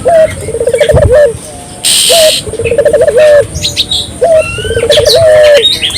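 Puter (Barbary dove) cooing over and over, each call a short opening note followed by a rolling, burbling coo. Higher chirps from small birds join in during the second half.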